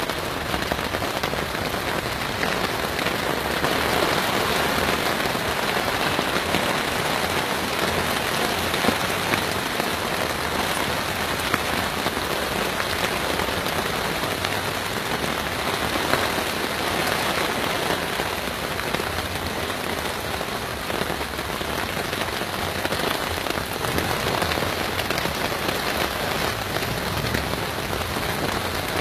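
Heavy rain pouring down in a thunderstorm, a steady downpour with a few sharper drop taps standing out.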